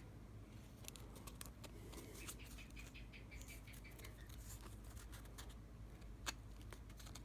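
Faint scattered clicks and light taps of small objects being handled, with one sharper click about six seconds in.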